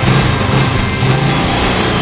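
Background music laid over the film, dense and continuous.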